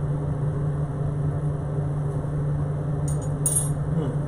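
Steady hum of a kitchen range hood fan, with a couple of brief clinks about three seconds in.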